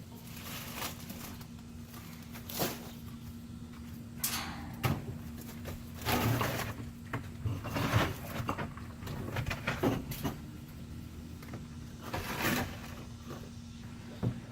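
Irregular knocks, scrapes and clunks of things being handled and moved, over a steady low hum.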